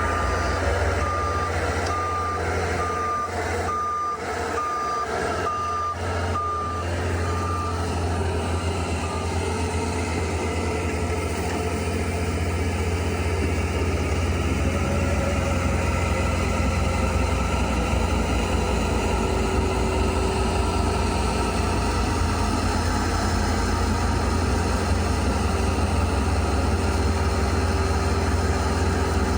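Bobcat S76 skid steer's diesel engine running steadily, with its reversing alarm beeping a little over once a second for about the first eight seconds, then falling silent while the engine runs on.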